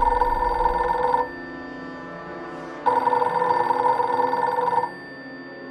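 Office desk telephone ringing with a fluttering electronic ring: one ring ends about a second in, and another two-second ring starts about three seconds in.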